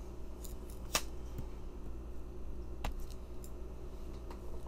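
Steady low hum of room tone with a few sharp clicks; the two clearest come about a second in and just before three seconds.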